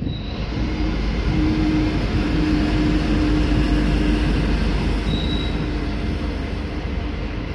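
DB class 245 multi-engine diesel locomotive passing close by. Its diesel engines run with a steady hum over the rumble of the train, loudest about halfway through and then slowly fading as it moves away. A brief high squeal sounds twice, at the start and about five seconds in.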